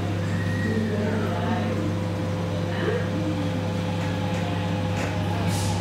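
Steady low mechanical hum of vehicles, with a few faint gliding tones over it.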